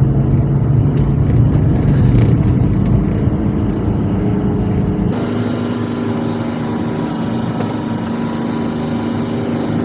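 Small kei-truck camper's engine pulling uphill under load, heard from the cab. The engine note changes abruptly about five seconds in, then runs on at a steadier, higher pitch.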